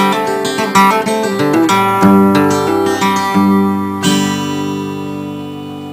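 Acoustic guitar music: a run of picked notes, then a final chord strummed about four seconds in that rings out and fades away.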